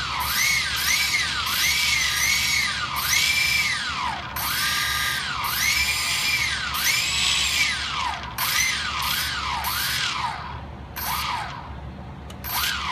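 Brushless motors of a Quanum Nova (Cheerson CX-20) quadcopter spinning with the propellers off, whining up and down in pitch about a dozen times as the throttle stick is pushed up and pulled back; the last few whines are short and lower. The motors are armed and running on a bench test after the crash repair.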